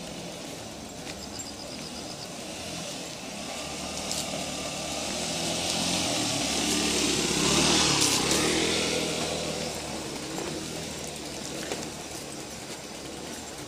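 A motor vehicle passing by: its engine and tyre noise swell over a few seconds, are loudest about eight seconds in, then fade away.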